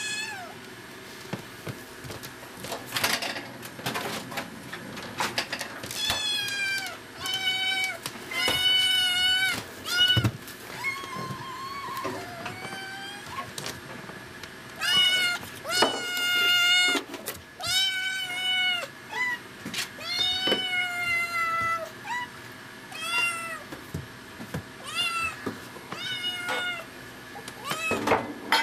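Kitten meowing over and over, insistent calls that each rise and fall, coming in quick runs and then more spaced out near the end: begging for milk.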